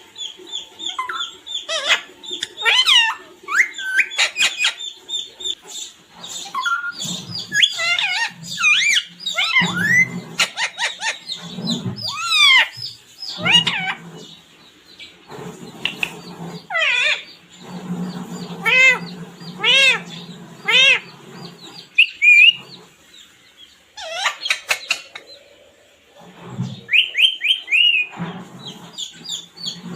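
Pet parrot chirping and calling in a quick string of short whistles and squawks, with a run of repeated arched calls partway through and a brief lull near the end.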